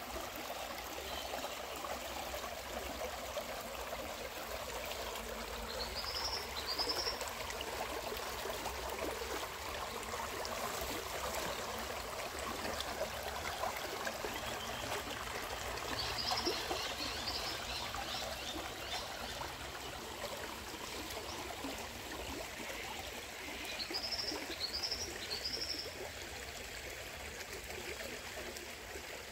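Creek water flowing steadily, a stream's even burble and trickle. A bird gives short, high, rising chirps in groups of two or three, three times.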